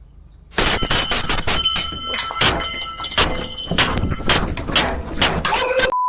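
A front door being pounded on again and again, a loud run of irregular heavy impacts with a raised voice mixed in, heard through a doorbell camera's microphone. A short steady censor bleep sounds near the end.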